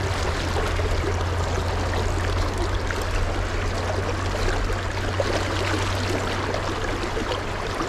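Shallow river water flowing steadily, a continuous rushing noise.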